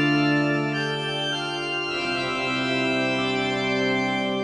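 Organ title music: held, sustained chords that change about two seconds in.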